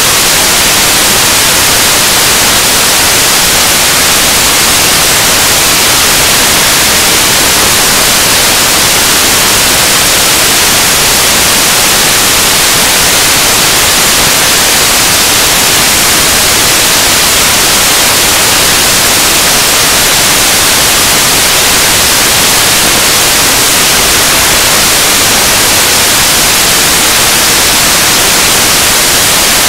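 Loud, steady static hiss, even and unchanging, heaviest in the treble, with no speech coming through.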